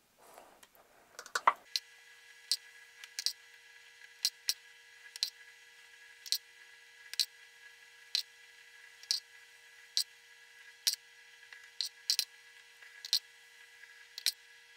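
Light clicks and taps of a metal spoon and egg halves against a glass plate and plastic bowl, roughly one a second, over a faint steady hum.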